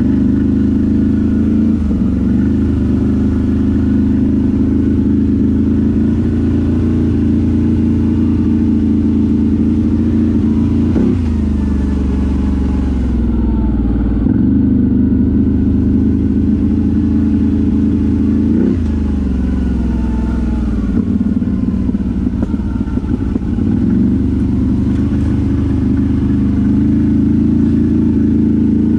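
ATV engine running steadily under load, with a few sharp rises in revs that quickly fall back.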